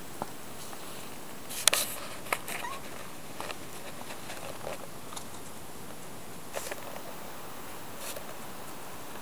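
Scattered crunches and clicks of footsteps on a snowy path, the loudest a short cluster near two seconds in, over a steady hiss.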